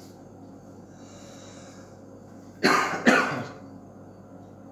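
A man coughs twice in quick succession, about two and a half seconds in, over a faint steady room hum.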